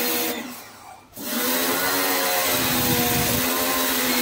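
Total 1400-watt electric pressure washer running, its motor and pump humming under the hiss of the high-pressure water jet striking a wall. The hum dies away about half a second in and starts again about a second in.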